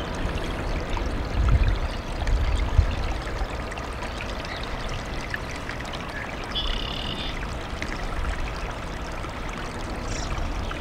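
Water pouring and trickling steadily out of a sandbag ring built around a large flood sand boil, the outflow kept running over lowered sandbags to relieve the underground water pressure. Two brief low rumbles about one and a half and three seconds in.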